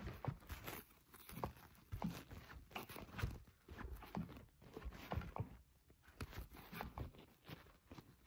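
Soft, irregular knocks and rustles of a phone being handled, fingers brushing and tapping close to its microphone, several a second with short pauses.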